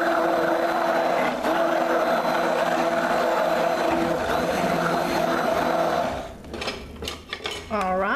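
Handheld stick blender running steadily while submerged in soap batter, mixing lye water into melted oils, then switched off about six seconds in. A few short, irregular sounds follow near the end.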